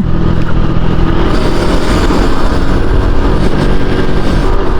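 Honda Pop 110i's small single-cylinder engine running at a steady speed on the move, with a strange rattling vibration from the front end. The rider suspects a cord tied on at the front, or the bent front wheel.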